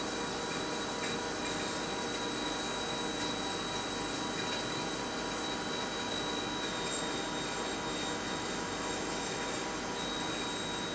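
Solid carbide drill cutting a deep hole in 1.4301 stainless steel on a CNC machine, with coolant spraying. It makes a steady hiss of machining and spray with a constant high-pitched whine.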